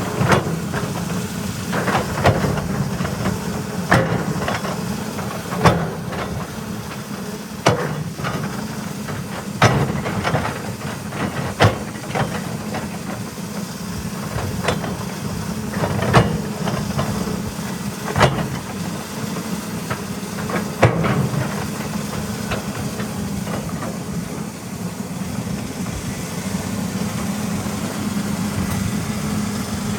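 Caterpillar 320E hydraulic excavator working, its diesel engine running steadily, with sharp knocks roughly every two seconds.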